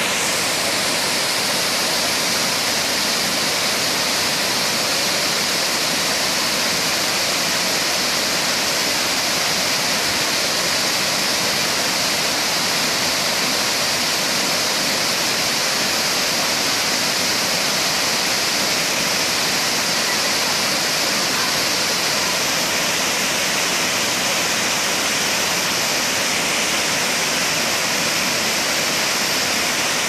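Multi-tiered waterfall pouring over rock ledges into a pool: a loud, steady rush of falling water.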